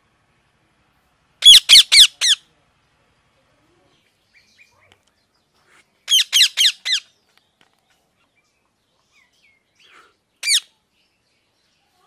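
Rose-ringed parakeet screeching: a quick run of four high calls about a second and a half in, another run of four about six seconds in, and one single call near the end. Each call falls in pitch.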